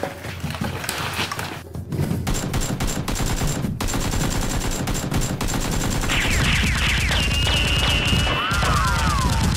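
Rapid automatic gunfire sound effects, shots following one another without pause, dubbed over a mock firefight. High whistling chirps come in over the last three seconds.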